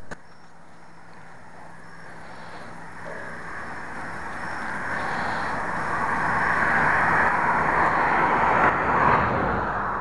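A vehicle passing by, its tyre and engine noise swelling over several seconds to a peak and easing off near the end.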